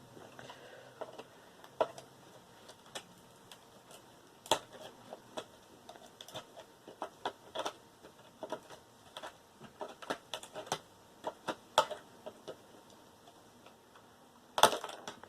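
Small metal and plastic computer parts being handled and sorted: irregular light clicks and clinks, with one louder clack near the end.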